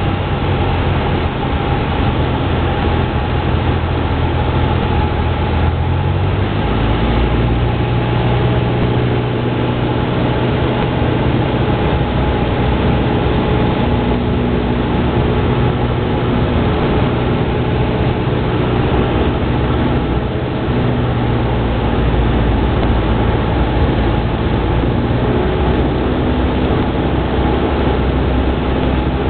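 Cessna 172's piston engine and propeller droning steadily inside the cabin on approach to landing. The engine note shifts to a different pitch about six seconds in and again near the end.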